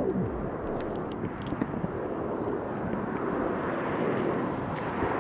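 Steady rushing outdoor background noise with a few light clicks. Right at the start, music slides down in pitch to a stop.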